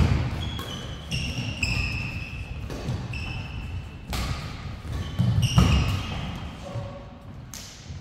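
Badminton doubles rally in a large hall: rackets crack against the shuttlecock several times, with thuds of footfalls and short high squeaks of court shoes on the floor.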